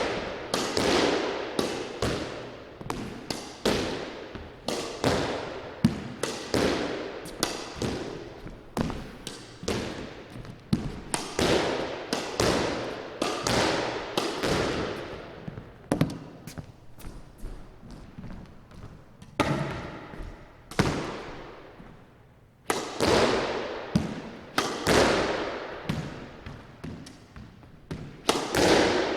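Squash ball struck again and again with a racket and rebounding off the court walls and floor, each hit followed by a ringing echo in the court. The hitting stops for a few seconds past the middle, then starts again.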